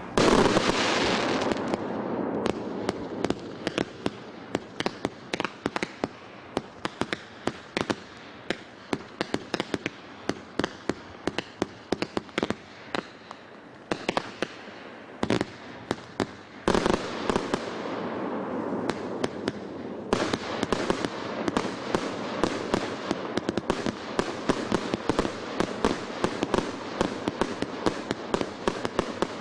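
The SP104300 'Korolevsky' firework going off: a rapid, dense run of cracks and bangs over a steady crackling hiss. It starts with a loud burst, eases off in the middle, and surges louder again about 17 and 20 seconds in.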